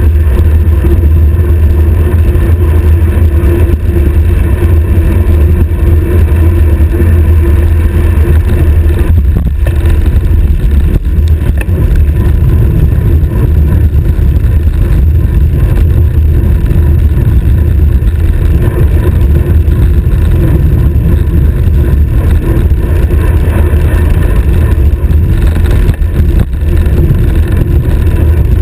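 Wind buffeting a stem-mounted GoPro's microphone on a road bicycle moving at high speed: a loud, steady low rumble.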